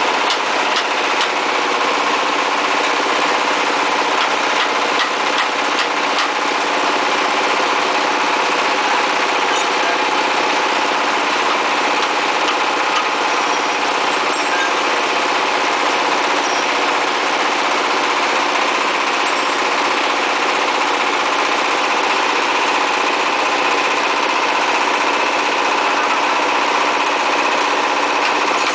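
Brick-making machine running steadily under the power of its 24 hp diesel engine, a constant mechanical drone that does not change in pace, with a few light clicks in the first few seconds.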